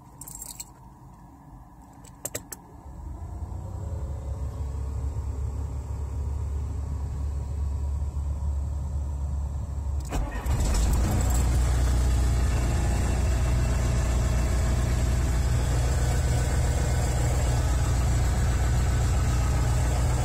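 GAZ-66 truck's engine being started and run, heard from inside the cab. A few sharp clicks come in the first couple of seconds, then a low engine drone builds from about three seconds in. About ten seconds in it turns suddenly louder and then runs steadily.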